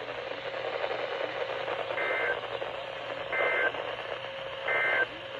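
NOAA Weather Radio end-of-message signal through a weather radio's speaker: three short bursts of SAME digital data tones about 1.3 seconds apart, over steady radio hiss.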